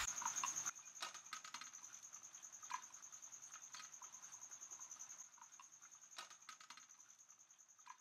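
Crickets trilling: a steady, high-pitched, rapidly pulsing chirp that slowly fades, with a few soft taps and clicks scattered through it.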